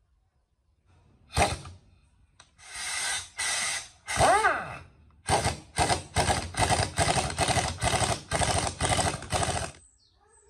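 A hand-held power driver with a socket and extension runs in bursts, tightening the valve-cover bolts on a motorcycle's parallel-twin engine. There are a few longer runs, one rising and falling in pitch as the motor spins up and slows, then a quick series of short trigger pulses, about two or three a second.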